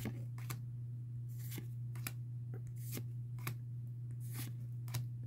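Pokémon trading cards being slid one at a time off the front of a freshly opened booster pack, each move a short papery snap of card stock, about eight in all at an uneven pace. A steady low hum runs underneath.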